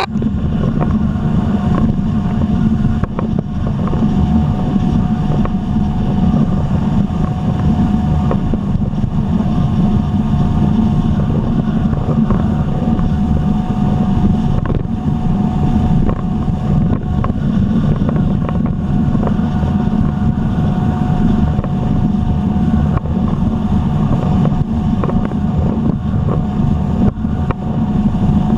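Jet ski engine and pump running steadily at cruising speed across open water, with a steady whine throughout.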